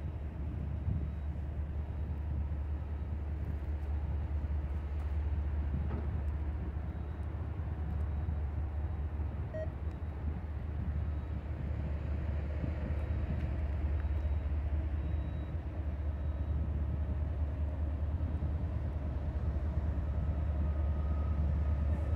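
Low, steady rumble of distant diesel locomotives on an approaching freight train, growing slightly louder near the end.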